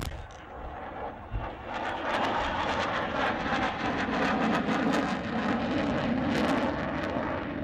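Jet noise from an F-14B Tomcat's two General Electric F110 turbofans as it pulls off a target run. It builds about two seconds in to a loud, crackling roar that holds steady, with a brief low thump just before.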